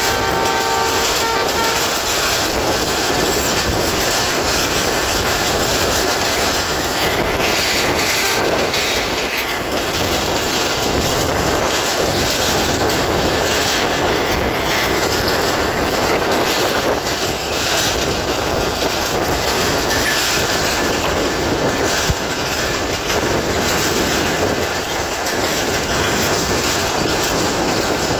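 Passenger train running at speed, heard from an open coach window: a steady loud rumble with the clatter of wheels over rail joints. A train horn chord is sounding as it begins and cuts off about a second in.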